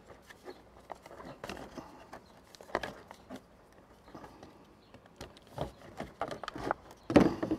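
Plastic housing clips of an electric pressure washer being pried apart with a screwdriver: scattered light clicks and knocks of plastic, with one louder snap about seven seconds in.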